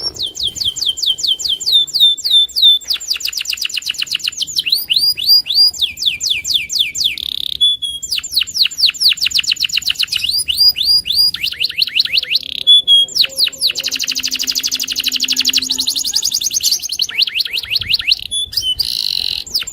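Domestic canary singing loudly and without pause: fast trills of high repeated notes, many of them quick downward sweeps, switching to a new phrase every one to three seconds.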